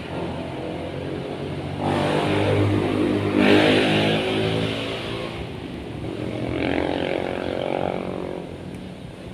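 A motor engine passing, loudest about three and a half seconds in, then a second, softer pass a few seconds later.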